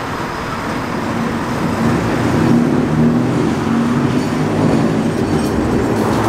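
Perley A. Thomas 900-series streetcar running with a steady low mechanical hum that grows louder about two seconds in.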